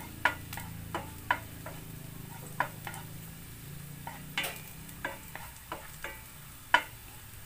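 Chopped garlic sizzling in oil in a nonstick frying pan, cooking until light brown, while a wooden spatula stirs it. Irregular sharp taps of the spatula against the pan run through it, the loudest near the end, over a low steady hum.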